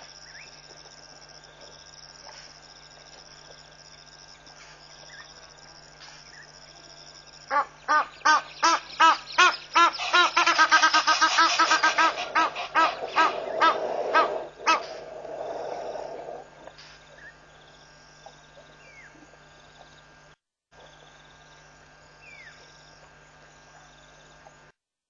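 A loud, harsh bird call, a series of notes at about four a second, starting about a third of the way in. The notes run together in the middle and die away after roughly nine seconds, over a steady background of insects.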